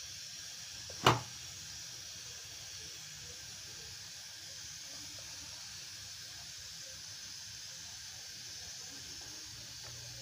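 Freshly boiled milk in a large steel pot giving a steady, faint high hiss as its foam settles off the heat, with one sharp click about a second in.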